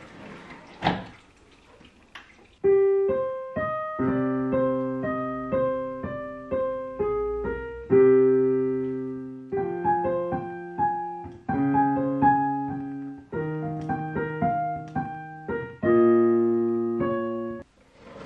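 Yamaha digital piano being played: a slow piece of held chords under a simple melody, starting about three seconds in and stopping shortly before the end. Before it, a knock about a second in as the sliding key cover is pushed open.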